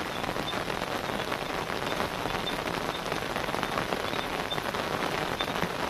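Steady rain falling, a dense even patter of drops.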